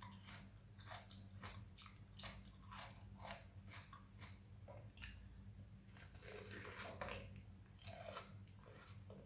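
Close-up mouth sounds of a person eating soft fruit: short wet chewing and lip clicks, one to three a second, with a longer patch of chewing noise about six seconds in. A steady low hum runs underneath.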